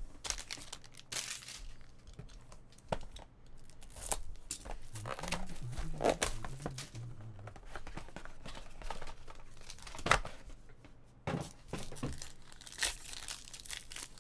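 A 2018 Topps Tier One foil trading-card pack taken from its cardboard box and torn open: crinkling foil and irregular ripping, with a sharp knock about ten seconds in.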